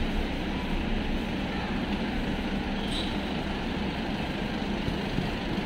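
Steady city street traffic noise: a continuous rumble of vehicle engines and road noise.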